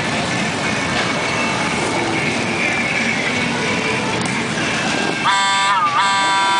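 Many motorcycle engines running in a dense crowd of bikes. About five seconds in, a horn starts blaring, one held note with a brief dip in pitch, and keeps sounding.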